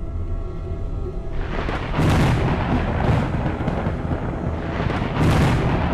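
Thunder sound effect: a low rumble with noise building, then loud rolling crashes about two seconds in and again near the end, under a dark music bed.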